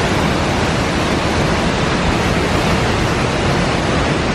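Waterfall rushing steadily: a loud, even noise of falling water with no breaks.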